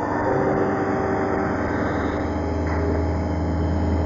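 Steady low mechanical hum of brewery machinery, with a few held tones, its deepest part growing a little stronger about a second in.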